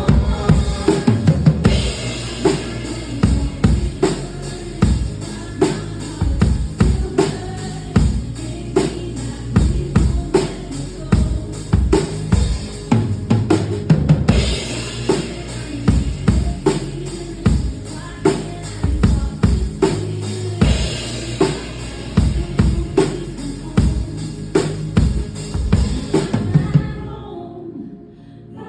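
Live pop band playing an instrumental stretch of the song, a drum kit keeping a steady beat with kick and snare under bass and keys. The drums and the top end drop out near the end, leaving a softer passage.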